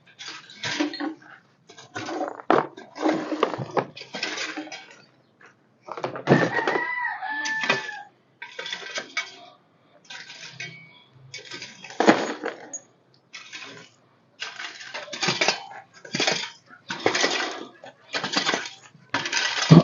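Repeated rough scraping strokes, roughly one a second, of a pen floor being cleaned, with a rooster crowing briefly about six seconds in.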